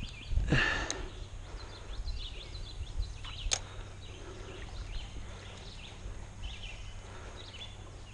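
Birds chirping lightly on and off. There is a brief whoosh about half a second in and a single sharp click about three and a half seconds in.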